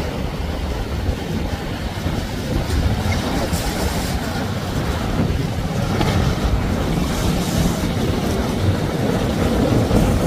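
Outboard-powered center-console boat running through choppy water, throwing spray, mixed with waves and wind buffeting the microphone. The sound grows slightly louder toward the end as the boat comes closer.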